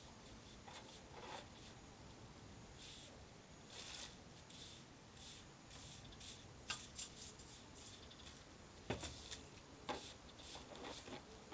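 Hand broom sweeping a floor into a dustpan: faint, short brushing strokes, then a few sharp knocks in the later part, the loudest of them about nine seconds in.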